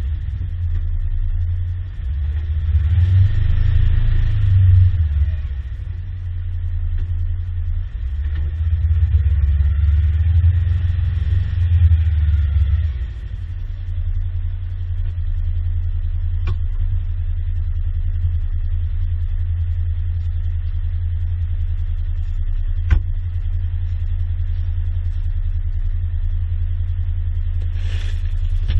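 Engine running with a steady low drone that swells louder twice for a few seconds, with a few faint clicks.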